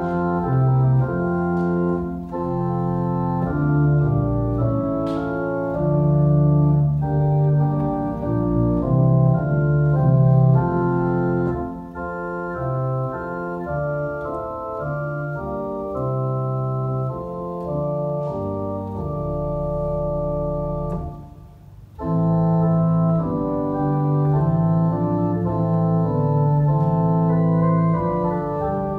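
Church organ playing sustained chords over deep pedal bass notes, played on the manuals and pedalboard. The music thins out and nearly stops about 21 seconds in, then comes back in full.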